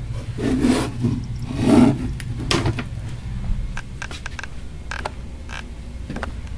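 Handling noise from a handheld camera: two brief rustles in the first two seconds, then scattered clicks and taps, over a steady low hum.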